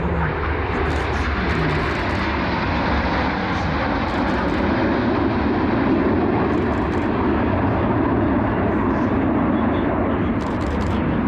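Jet engine noise from a formation of Aermacchi MB-339 jets flying overhead: a steady rushing noise that grows slightly louder around the middle.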